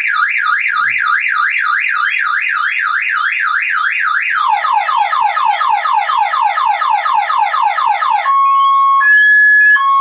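Car alarm siren of a Sheriff ZX-1090 PRO system, set off by the second (alarm) zone of the shock sensor. It cycles through its tones: a fast up-and-down warble, about four a second; then quick falling sweeps from about four seconds in; then two steady tones alternating near the end.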